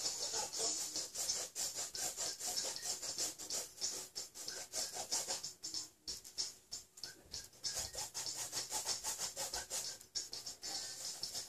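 A paintbrush scrubbing oil paint onto a stretched canvas in quick, repeated back-and-forth strokes, a dry scratchy rubbing.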